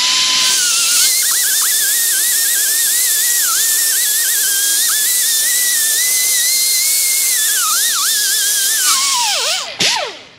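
Handheld rotary tool with a polishing wheel whining at high speed as it polishes surface rust off a steel wheel hub, with a loud hiss and a pitch that wavers and dips. Near the end it is released and spins down with a quickly falling whine.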